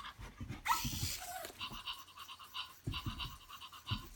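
Small electric motors of a Zoomer robot dog whirring as the toy drives about, in a fast, evenly pulsing pattern, with a few soft knocks.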